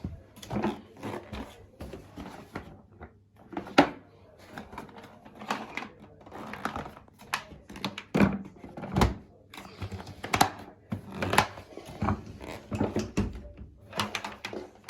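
Irregular thunks and knocks, two or three a second, of hard objects handled or bumped. No vacuum motor is running.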